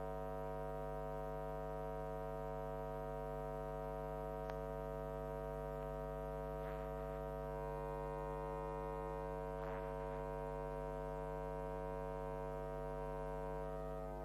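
Steady electrical mains hum, a constant low drone with a stack of even overtones that never changes in pitch or level. Faint brief noises sit under it about halfway through and again about two-thirds through.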